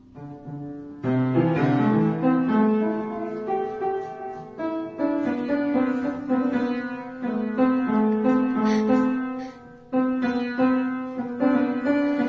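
Piano playing a line of single notes and small chords, breaking off briefly twice.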